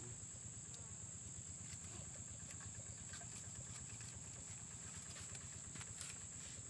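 Quiet outdoor ambience with a steady high-pitched insect drone, and a few faint clicks from hands working a wire bird-trap cage.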